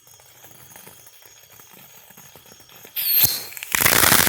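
A small consumer firework, a Cutting Edge '3-inch Happiness' mine fountain: a lit fuse crackles faintly, then about three seconds in the firework goes off with a sudden burst and a short falling whistle, followed by a loud rushing hiss as it shoots out its sparks and flaming balls.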